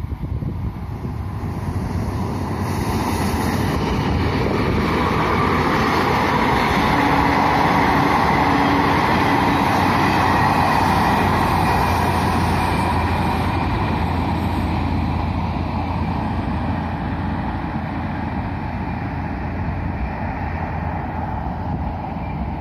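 Old-type, low-powered six-coach diesel-electric multiple unit (DEMU) passenger train passing at speed. The engine and running noise build up, are loudest about eight to eleven seconds in, then slowly fade as the train moves away.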